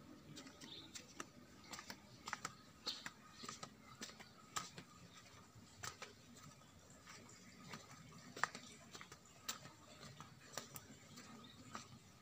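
Footsteps on stone paving: light, irregular clicks and taps, a few a second and often in close pairs, quiet against a faint steady background.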